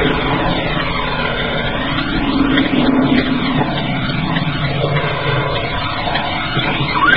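Steady road and engine noise of a car driving, picked up by the dashboard camera inside the car, with a slowly sweeping, hollow, phased quality over the hiss.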